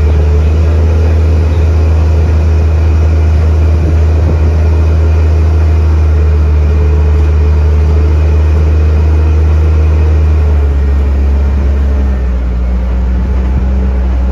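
Parking lot tram under way: the tractor unit's engine runs with a steady low hum, heard from the passenger car. About ten seconds in the engine note drops lower.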